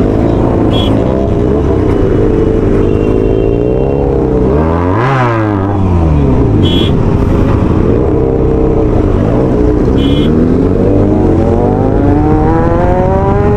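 Several superbike engines revving at once, their pitches sliding up and down, with a sharp dip and climb about five seconds in and a long rising rev near the end. Three short high-pitched beeps cut through, spaced several seconds apart.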